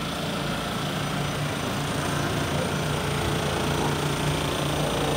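Steady machinery hum from a tractor engine and a Pellenc destemmer-sorter running while grapes are tipped into the sorter's hopper, growing slightly louder.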